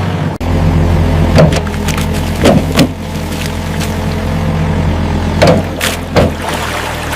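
Mini excavator engine running steadily, with several sharp knocks and clunks as it digs.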